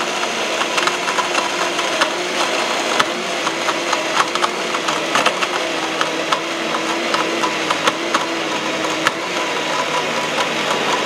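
Sujata MagnaPro CL-1350 commercial mixer grinder with a 1350-watt motor running steadily while grinding whole turmeric, with an irregular clatter of hard pieces against the steel jar.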